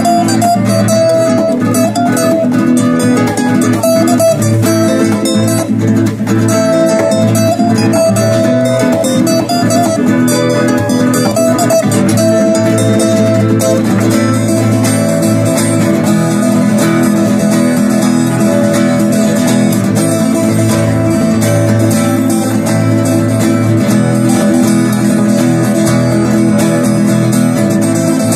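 Acoustic guitars playing live music, a melody line over steady chords and bass.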